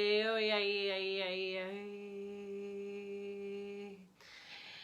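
A voice holding one long hummed note, wavering in pitch at first and then steady, fading out about four seconds in; a breath follows.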